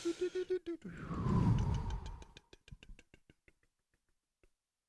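Soundtrack sound effects ending: a pulsing tone rising in steps cuts off under a second in, followed by a falling whine and a low rumble. A fast run of clicks then slows and fades away like a dying echo.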